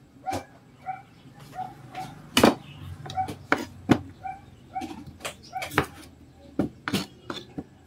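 Kitchen knife cutting vegetables on a plastic cutting board: about ten sharp knocks at uneven intervals, the loudest about two and a half seconds in. Behind them an animal gives short repeated calls, a few a second.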